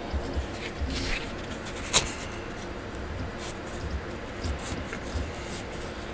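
Hands handling a Nendoroid figure: light clicks and rustles, with one sharp click about two seconds in, over a low uneven rumble.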